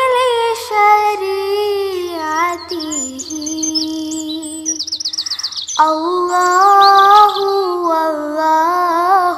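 Background music: a smooth, wavering wordless melody held over long notes, with a quick run of high bird-like chirps about five seconds in.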